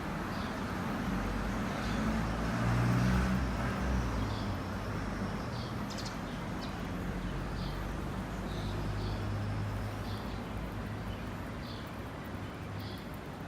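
Steady low background rumble, like distant traffic, that swells about three seconds in, with faint short high chirps now and then.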